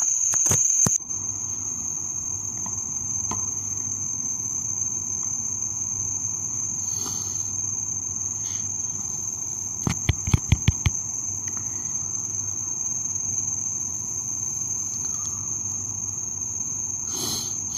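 Crickets trilling as one steady high-pitched note over a faint hiss, with a quick run of about six clicks around ten seconds in.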